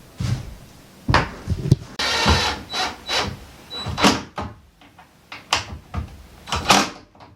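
Knocks and clicks of hardware work on a wooden door's latch and strike plate, with a short whirring burst about two seconds in.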